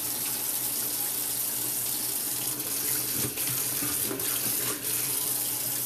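Kitchen faucet running, a steady stream of water splashing into the sink basin and down the drain.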